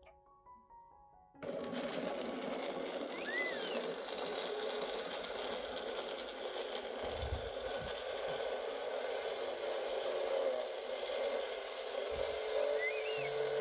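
A small electric kitchen motor, used here to make carrot and guava juice, starts up suddenly about a second and a half in and runs steadily. Two short high chirps come over it, one a few seconds in and one near the end. Piano music fades out just before the motor starts.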